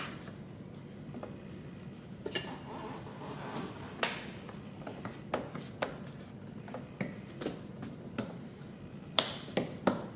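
Scattered clicks, taps and knocks of hands working on a car door's plastic trim panel and its parts, with two sharp clicks close together about nine seconds in.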